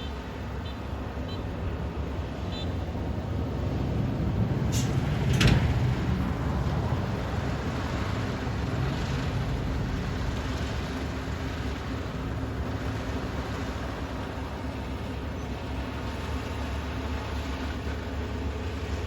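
Kubota ER470 combine harvester running steadily, with a steady mechanical hum. About five seconds in there are two brief sharp noises, the second the loudest.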